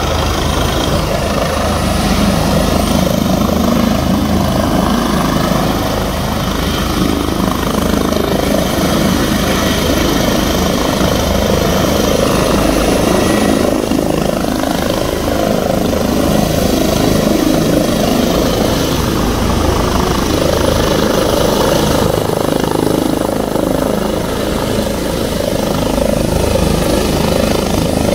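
Airbus H145 helicopter running loud and steady, its rotors and turbines heard as it hovers low and sets down on a ground pad, the rotors still turning once it is on the ground.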